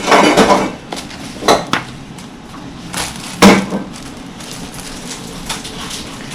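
Knocks and clinks of hard parts of a microwave oven and its fittings being handled: a quick clatter at the start, then a few separate sharp knocks, the loudest about three and a half seconds in.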